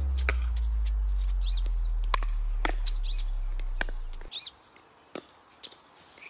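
Pickleball paddles hitting a plastic ball in a rally, half a dozen sharp hits about a second apart. A deep bass note carried over from music holds and fades, and it is the loudest sound until it cuts off about four seconds in. Birds chirp a few times.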